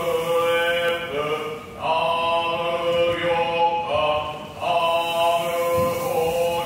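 Buddhist shōmyō chanting by a male voice: long held notes in phrases of a second or so, with short breaks between them.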